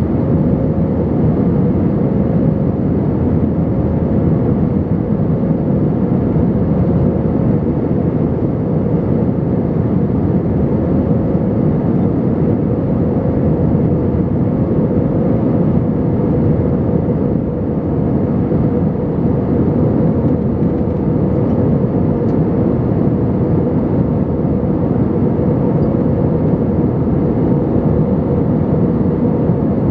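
Airbus A320 cabin noise in flight: the steady roar of the jet engines and airflow, heard from a window seat, with a thin steady hum running through it.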